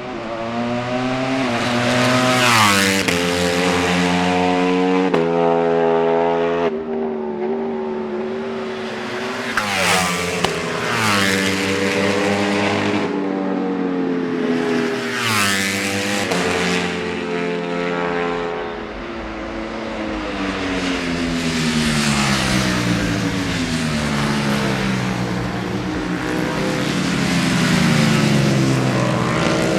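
Ducati Panigale V4 superbikes running hard on track, their V4 engines revving, several bikes overlapping. The pitch climbs and snaps back down several times as they shift up through the gears, and in the second half the engine notes slide steadily lower as the bikes brake and downshift.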